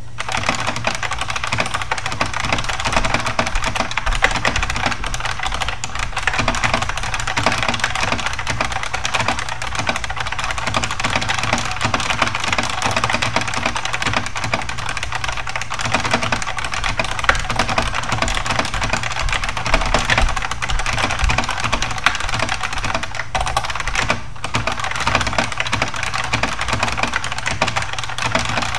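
Fast, continuous typing on a Unicomp buckling-spring mechanical keyboard: a dense clatter of loud keystroke clicks, with a brief pause about 24 seconds in.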